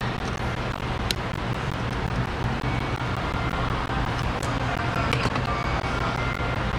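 A few light metallic clicks, about a second in and again after four and five seconds, as needle-nose pliers pick at the shredded remains of a drilled-out lug nut. They sit over a steady low mechanical hum.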